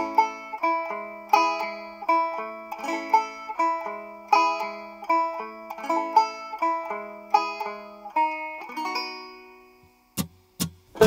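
Background music: a solo plucked-string tune in a steady run of notes, each ringing and decaying, fading out about nine seconds in. A few sharp clicks follow near the end.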